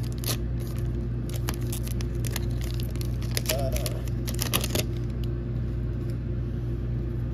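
Foil booster-pack wrapper crinkling and tearing open as trading cards are slid out, a run of sharp crackles that stops about five seconds in. A steady low hum runs underneath.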